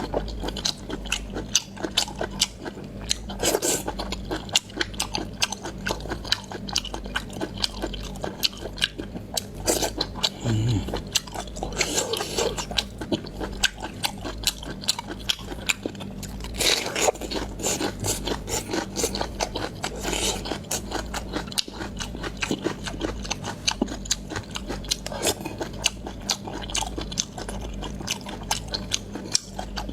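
Close-miked chewing of fish maw: a dense run of wet clicks and crunches, with a few louder bites about 3 s, 12 s, 17 s and 20 s in.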